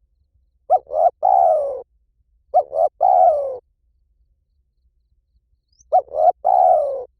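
Spotted dove cooing: three calls about two and a half seconds apart, each two short coos followed by a longer coo that falls in pitch.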